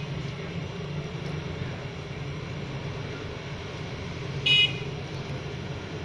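Steady low traffic rumble, with one short, loud, high-pitched sound about four and a half seconds in.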